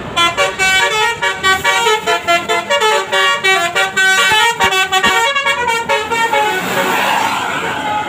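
Bus telolet horn, a multi-trumpet horn, playing a fast tune of short notes that keep changing pitch. The tune stops about six and a half seconds in.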